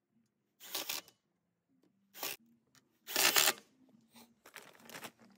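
Cordless driver running in short bursts, driving 1-inch truss screws through a 22-gauge galvanized steel plate into 2x4 lumber, three main bursts with the loudest about three seconds in, then weaker ones.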